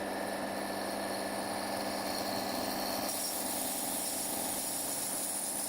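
Power drill with a 4 mm glass-drilling bit running steadily as it grinds a hole through the bottom of a glass bottle, a constant hum with a slight change in tone about three seconds in.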